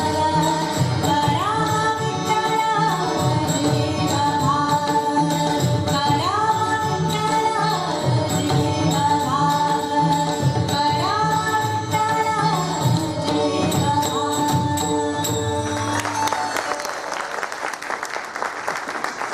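Marathi devotional abhang sung by a woman with harmonium, tabla and pakhawaj, in repeated phrases that rise and fall. The song ends about sixteen seconds in and audience applause follows.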